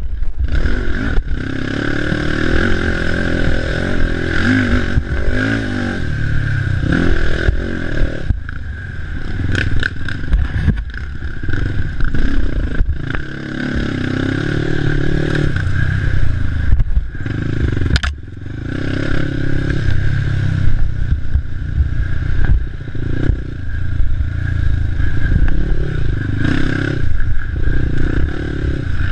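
Racing ATV's engine revving up and down as it is ridden hard, with clatter and scraping from the quad over rough ground and a sharp knock about 18 seconds in.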